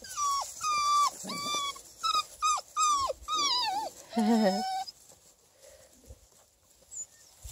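Beagle puppies yipping in play during a tug-of-war over a toy: a quick run of about eight short, high-pitched yips, each falling in pitch, then one lower, longer cry about four seconds in.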